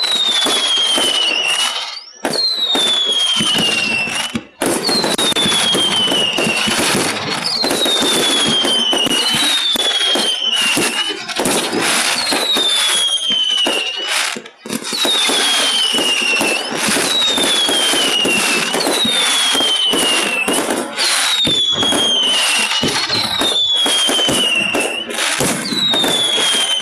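Fireworks display: a dense, continuous run of bangs and crackles, with a falling whistle about every one and a half to two seconds, typical of whistling fireworks. The sound is flattened and heavily compressed by a phone's microphone.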